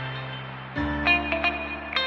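Background music: plucked guitar-like notes over a held bass note, which changes about a second in.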